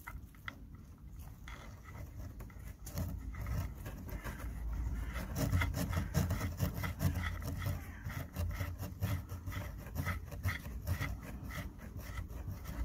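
Steel oil drain plug with a new copper washer being screwed back into the sump by a gloved hand: a run of small clicks and rubbing over a low rumble.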